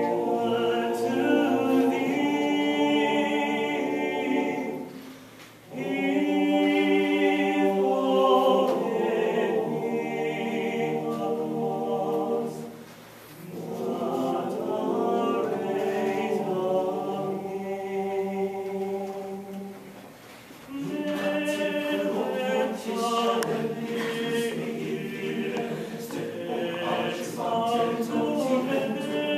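Male choir singing a cappella in several parts, in phrases broken by short pauses about five, thirteen and twenty seconds in. Short sharp clicks join the singing over the last several seconds.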